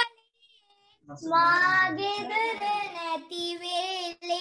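A young child singing a Sinhala children's rhyme solo over a video-call connection. The voice comes in about a second in after a short silence and holds its notes.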